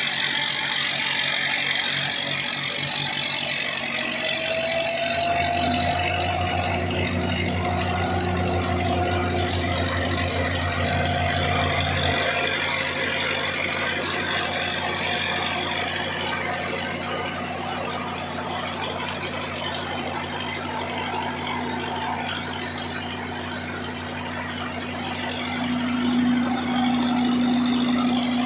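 Old Belarus tractor diesel engine running steadily under load, turning a flour mill (aata chakki) through pulleys and flat belts while the mill grinds grain. The low engine hum grows stronger for several seconds, starting about five seconds in.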